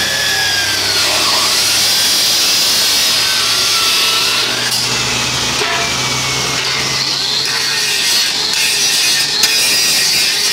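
Electric abrasive chop saw cutting stainless steel stock: a loud, steady grinding, with a whine that falls in pitch as the blade spins down.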